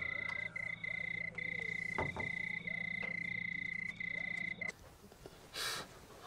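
Night-time chorus of frogs: a steady high trill with short regular breaks over a low hum. It cuts off abruptly about three-quarters of the way through, followed by a brief hiss.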